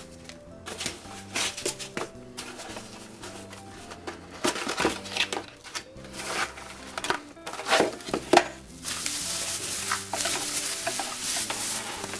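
Packaging being handled as items are taken out of a product box: a string of rustles, clicks and knocks, with a longer stretch of steady rustling about nine seconds in. Soft background music plays underneath.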